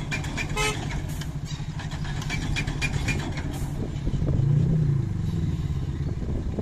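4x4 SUV engine straining under load as it tries to tow a tipper truck stuck in sand, revving up and back down about four to five seconds in. A few sharp clatters in the first second or so.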